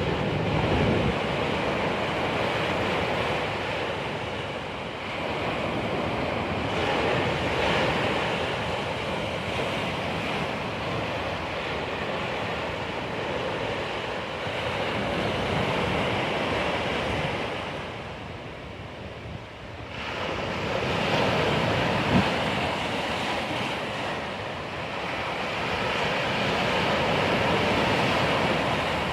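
Sea waves breaking and washing on the shore, the surf swelling and ebbing every several seconds, with some wind on the microphone.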